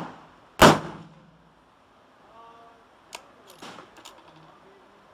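A rifle shot about half a second in, the loudest sound, with a short echo, following close on the tail of an earlier shot; then a few light metallic clicks and clanks around three to four seconds in.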